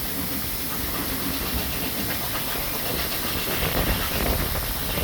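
Narrow-gauge steam train under way: a steady hiss over a low rumble of the carriages, with a few faint clicks near the end.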